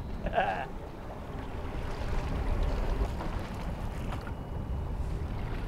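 Wind rumbling on the microphone over choppy open sea, with waves washing and lapping: a steady low, noisy rumble.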